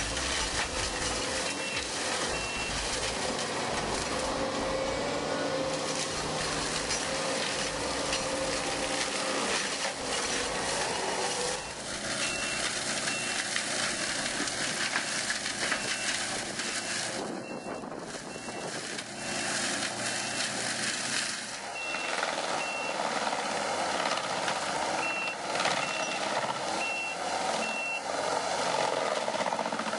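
Skid steer running with a SEPPI MIDIFORST forestry mulcher, a continuous loud grinding machine noise whose character changes abruptly a few times. Over it, the reversing alarm beeps about once a second in stretches, mostly in the second half.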